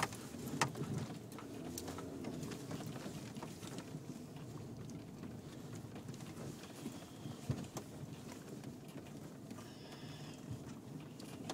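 Car cabin noise while driving slowly on a snow-covered road: a steady low rumble with scattered sharp knocks every second or few.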